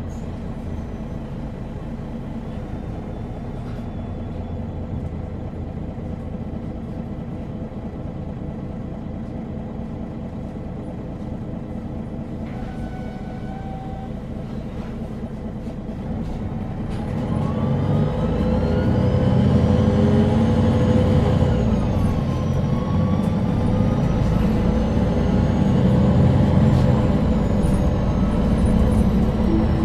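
MAN NG313 articulated city bus with its 310 hp diesel and Voith automatic gearbox: the engine runs at a low, steady idle for about the first half, then the bus pulls away and the engine note grows louder, with a drivetrain whine that climbs, falls back and climbs again.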